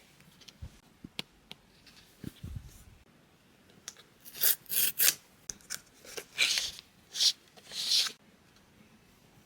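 Phone-case packaging being handled and opened: a few small clicks and taps, then from about four seconds in a run of about six short rubbing, tearing sounds.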